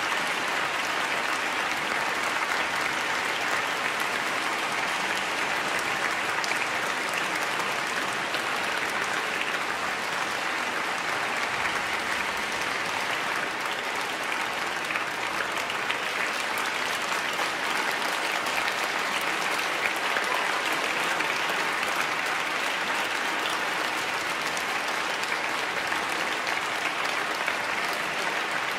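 A large concert-hall audience applauding steadily, a dense unbroken clapping.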